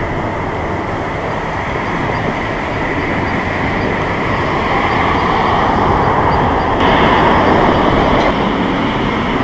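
Boeing 747-8F's four GEnx turbofans giving a loud, steady jet roar on the landing rollout just after touchdown, swelling through the middle and changing abruptly about seven seconds in.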